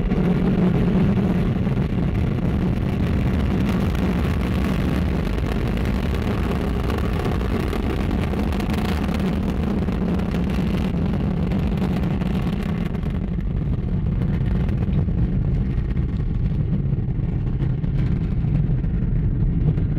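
Ariane 5 rocket at liftoff: a continuous loud, deep rumble from its Vulcain main engine and two solid rocket boosters. The higher part of the sound fades about thirteen seconds in, leaving mostly the low rumble.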